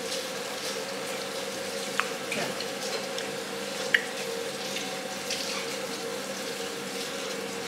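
Steady background hiss with a low hum, and two small clicks, about two and four seconds in.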